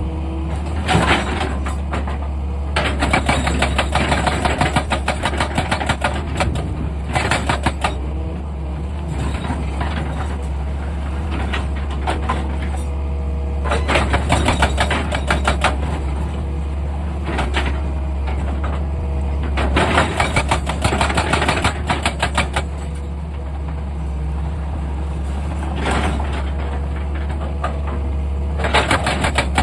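Excavator's diesel engine running steadily, with repeated bursts lasting one to three seconds of rapid metallic clatter, about eight bursts in all.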